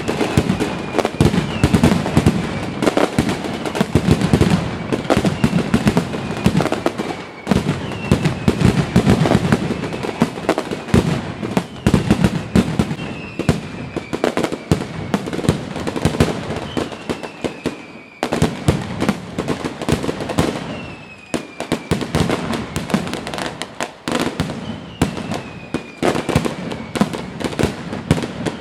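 Fireworks display at full barrage: a dense, continuous run of bangs and crackling, with a high falling whistle repeating every second or two.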